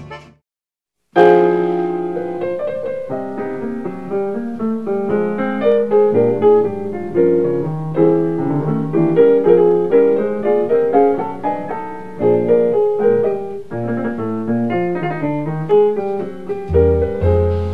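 Background piano music, a melody of struck notes that starts about a second in after a brief silence.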